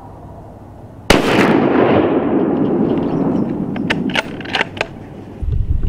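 A single gunshot about a second in, fired at a deer, its report rolling and echoing for about three seconds as it fades. A few sharp clicks follow, then wind rumbles on the microphone near the end.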